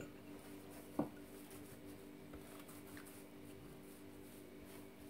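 A single wooden knock about a second in, as a wooden rolling pin is set on a wooden board, then the faint soft rub of the pin rolling over bread dough, over a low steady hum.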